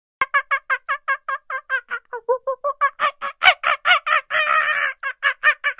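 An animal calling in a rapid, ha-ha-ha-like run of short pitched notes, about six a second. The notes dip lower partway through, then grow louder, with a harsher drawn-out stretch near the end.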